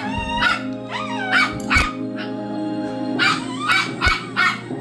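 Pet dogs whining and yipping in short, wavering calls, impatient for their food at feeding time, over background music from a television.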